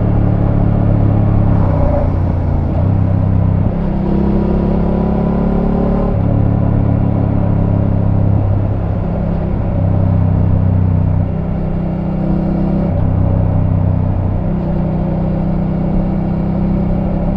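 Voge 900 DSX's parallel-twin engine running on its stock exhaust, a steady low note whose pitch steps up or down several times.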